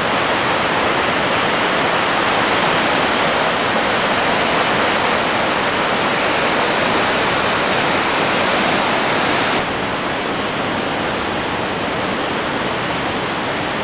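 River in flood rushing and churning as whitewater through a gorge: a steady, loud rush of water. A little over nine seconds in, it drops slightly in level and loses some of its hiss.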